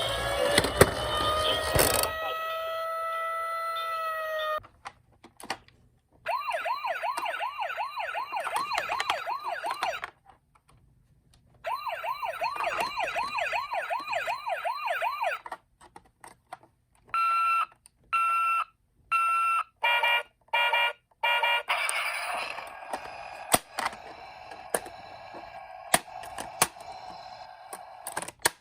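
Electronic sirens of toy emergency vehicles through a small tinny speaker: a slow wail first, then two runs of a fast warbling yelp, then a string of short on-off beeping tones. Near the end they give way to a rattling clatter with sharp clicks.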